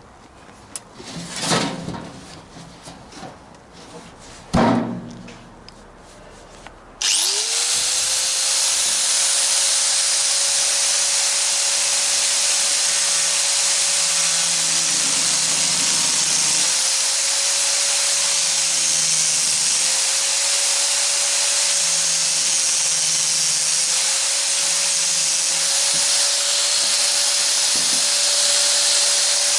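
A few knocks, then an electric power tool switches on about seven seconds in and spins up to a steady whine with a loud hiss. It runs continuously, its pitch dipping briefly several times as it is pressed into the work.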